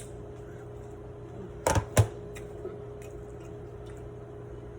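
Two quick clunks of cookware, about a third of a second apart, over a steady low hum of a kitchen appliance.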